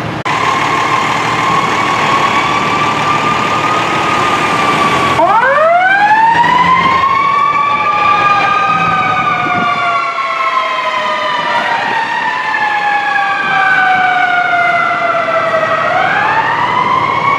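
Fire apparatus sirens. A steady high siren tone breaks off about five seconds in. Then sirens start up from low and rise, and two or more wails overlap, rising and falling slowly, with one climbing again near the end.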